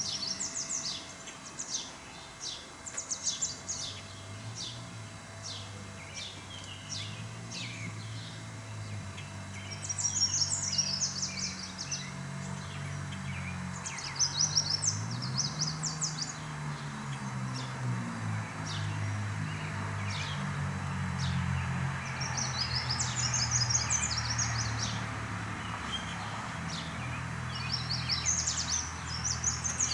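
Small songbirds chirping and singing outdoors, with repeated short high chirps and a quick trilled song phrase about four times. A low, wavering drone runs underneath.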